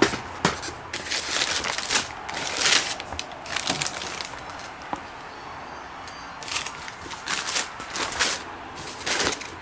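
Tissue paper crinkling and cardboard boxes being handled as a box is opened and rummaged through, in irregular rustling bursts, with a couple of sharp knocks near the start.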